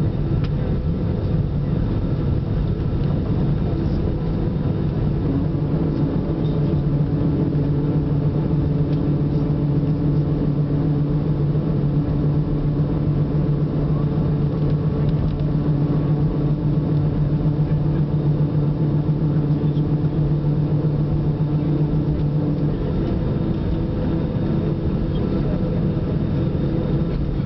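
Cabin noise of an Airbus A320-family airliner taxiing after landing, heard inside the cabin: a steady rumble with the engines' low hum at idle. The strongest part of the hum fades away a few seconds before the end.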